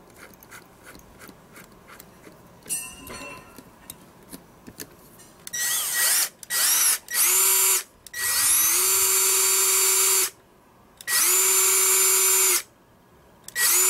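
Cordless drill spinning a 45 mm diamond cutting disc freely with no load, run in bursts on the trigger. After a few faint handling clicks, there are three short blips and then three longer runs, each rising in pitch as the motor spins up and then holding a steady whine before stopping.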